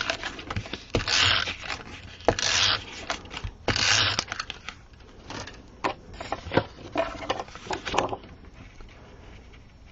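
Stampin' Up! SNAIL adhesive tape runner drawn across the back of a cardstock panel in four short strokes, about a second apart. Then a few light taps and clicks of paper being handled and pressed into place.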